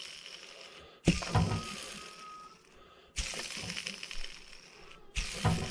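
A worn chainsaw ball bearing spun by hand with a finger flick three times, about two seconds apart. Each spin starts suddenly as a rough, rattling whir and fades out. The noise itself is the sign of bearing failure, bad enough to be heard.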